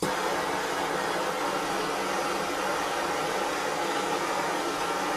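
Handheld Bernzomatic propane torch burning with a steady hiss, its flame passed over freshly poured epoxy glaze coat to pop the air bubbles.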